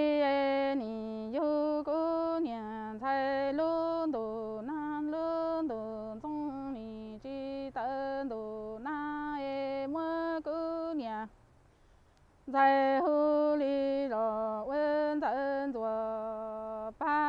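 A Hmong woman singing unaccompanied in a traditional sung-poetry style: long held, wavering notes that drop at the end of each phrase. She breaks off about eleven seconds in and starts again a second or so later.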